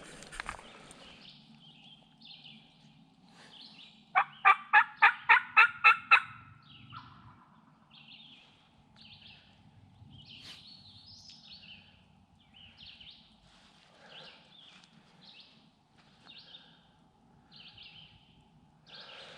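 A turkey call giving a loud series of about nine yelps, roughly four or five notes a second, about four seconds in. Faint songbird chirps follow over a low steady rumble.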